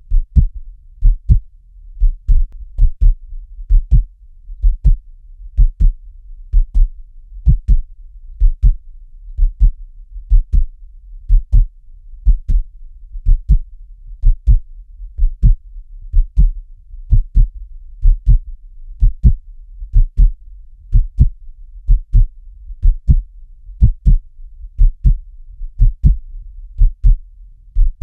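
Steady heartbeat: a low double thump (lub-dub) repeating a little under once a second, about 65 beats a minute, over a faint low hum.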